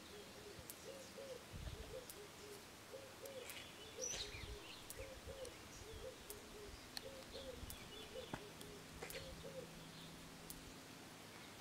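Faint outdoor ambience of birds calling: a low, short call repeating about twice a second, with scattered higher chirps.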